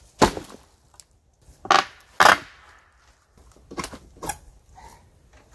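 Weathered wooden planks being knocked and broken apart by hand: a sharp wooden crack about a quarter second in, two more about a second and a half later, the second of them the loudest, and two lighter knocks near the end.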